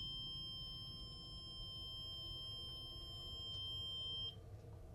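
Ghost-hunting proximity sensor with an antenna sounding a steady high electronic tone, its alert that something has come close to the antenna; the tone cuts off sharply about four seconds in.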